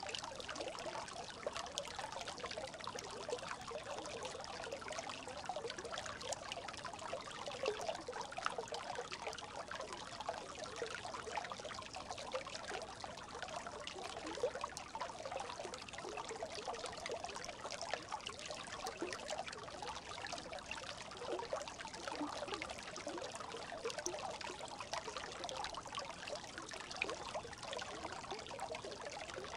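Brook babbling steadily: a continuous trickle of water full of quick little gurgles.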